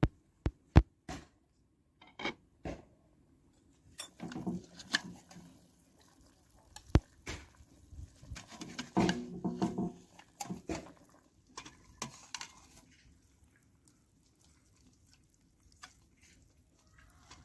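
A slotted metal spoon clinking and scraping against a stainless steel cooking pot while scooping boiled potatoes and meat out of broth into a bowl. A few sharp metal clanks come in the first second, then scattered clinks come in clusters through the middle and die away near the end.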